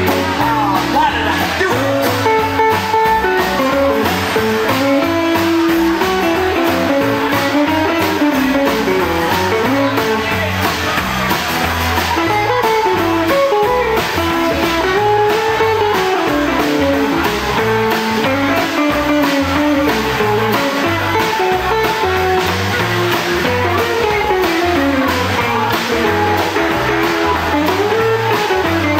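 Live rockabilly band playing an instrumental break: a lead line on a semi-hollow electric guitar, with bends and runs, over strummed acoustic guitar, upright bass and drums.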